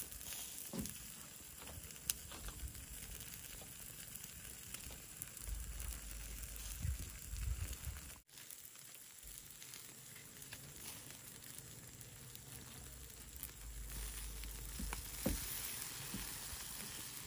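Chicken sizzling as it grills over a fire, a steady hiss with scattered pops and crackles. The sound breaks off for a moment about eight seconds in.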